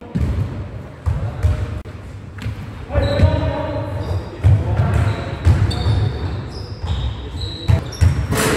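Basketball bouncing on a sports-hall floor and sneakers squeaking as players run and cut, heard in a large gymnasium with several short squeaks from about three seconds in.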